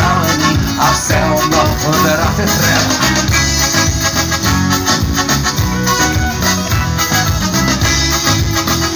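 A live band playing through the stage PA: guitars, drums and keyboards in an instrumental passage, with no singing.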